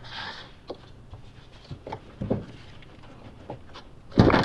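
Tesla Model X's plastic frunk tub being lowered and shifted into place by hand: a few light knocks and scrapes, then a heavier thud near the end.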